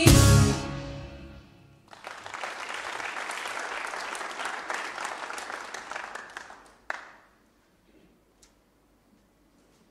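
The band's last chord rings and dies away, then the audience applauds for about five seconds, the clapping fading out. A single sharp knock follows near the end of the applause.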